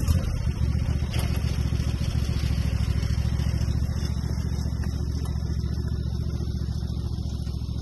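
Riding lawn mower engine starting up and then running steadily as the mower drives off, its sound growing duller after about four seconds as it moves away.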